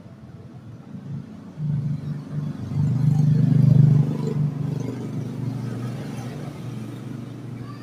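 A motor vehicle's engine rumbling past. It swells over a couple of seconds, is loudest about three to four seconds in, then slowly fades.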